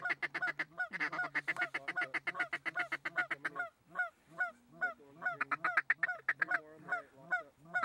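Goose calls blown in a fast clucking run, about nine short honking notes a second over a low steady tone. The calling breaks off a little before halfway and picks up again about a second later.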